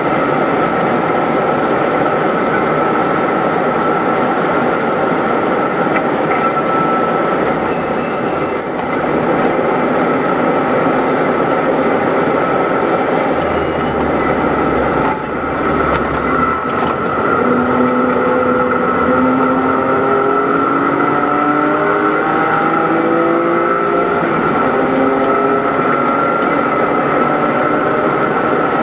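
In-car sound of a BMW E90 325i race car at speed: its straight-six engine under load with a steady high whine and wind and road noise. In the second half it slows hard for a corner through a series of shorter stepped engine tones before accelerating again.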